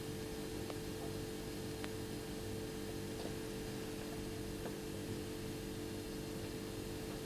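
Steady electrical hum with a few fixed tones under an even hiss, with a handful of faint ticks.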